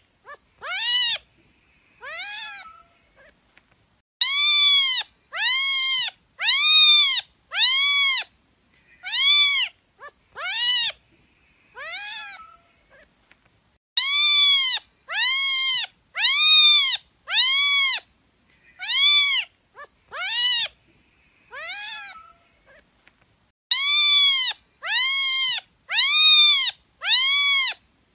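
A cat meowing over and over, high-pitched meows that each rise and then fall in pitch, about one a second in runs of four or five separated by short pauses.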